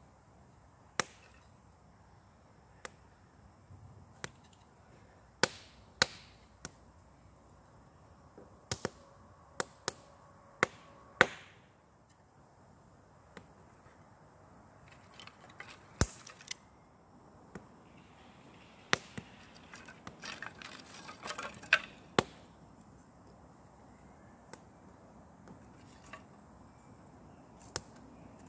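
Thin split kindling sticks clacking against one another as they are picked up and laid one by one on a small fire: about two dozen sharp wooden clicks at irregular intervals, with a longer stretch of rustling and crackling about twenty seconds in.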